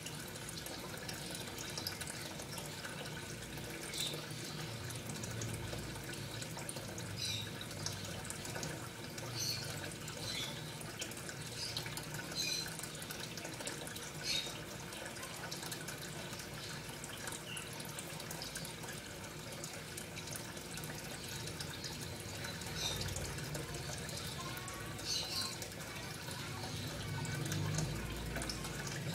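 Aquarium filter running: a steady trickle of water with a low motor hum, and small drips and bubbles breaking throughout.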